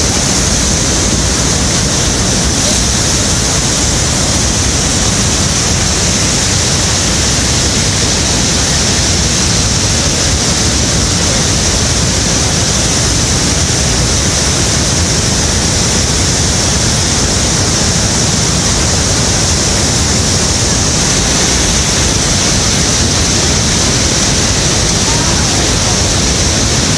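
Bridal Veil Falls at Niagara crashing onto the rocks at close range: a loud, steady roar of falling water.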